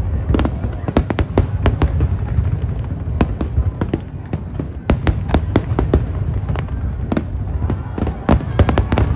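Aerial fireworks display: a rapid, irregular string of sharp cracks and bangs from bursting shells over a steady low rumble.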